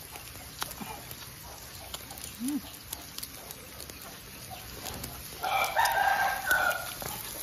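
A rooster crowing once, a call of about a second and a half that starts about five and a half seconds in. Faint clicks of chopsticks on a dish run under it.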